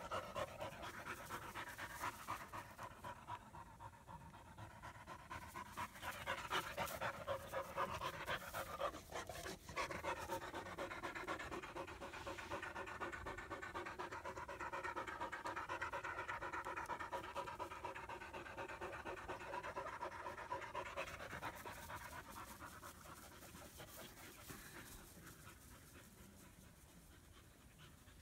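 German Shepherd puppy panting quickly and rhythmically close by. The panting grows fainter over the last few seconds.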